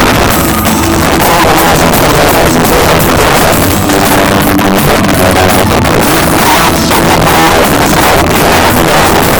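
Live rock band playing loudly, with electric guitar and drums. The sound is harsh and overloaded, pinned near full volume throughout.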